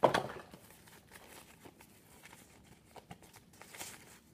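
Handling noise from small plastic and fabric camera accessories: a sharp knock with a brief rustle at the very start, then scattered light clicks and rustling, with another rustle near the end.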